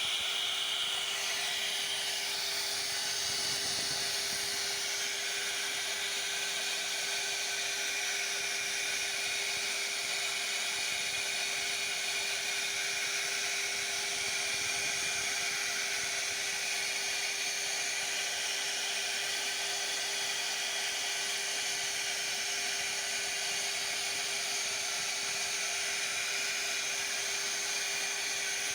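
CNC router (1325 model) running steadily as it carves wood: a constant high hiss with a steady tone underneath.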